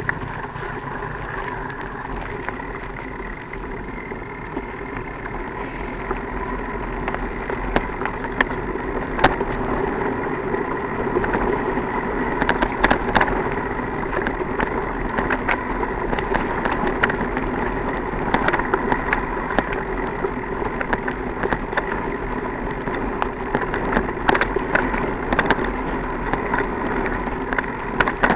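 Bicycle ridden over a rough trail: a steady rolling drone with frequent sharp rattling clicks.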